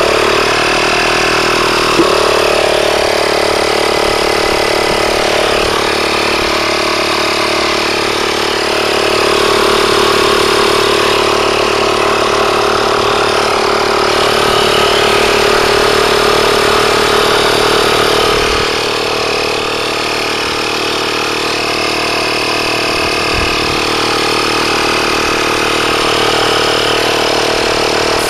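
Portable electric tire-sealant inflator's compressor switching on abruptly and running steadily, pumping sealant and air into a flat tire.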